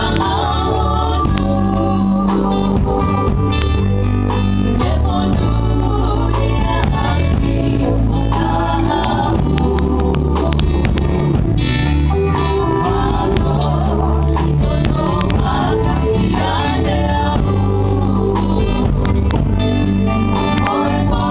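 A gospel group singing a song, accompanied by guitar over a strong, steady bass.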